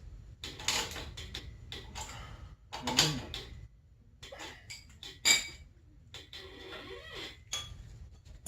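Hand wrench working a steel bolt on a snowmobile's front suspension control arm: irregular metal clicks and clinks, the sharpest about five seconds in.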